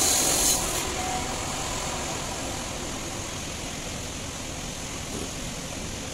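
Steady hum and noise of workshop machinery running, with a high hiss that cuts off about a second in.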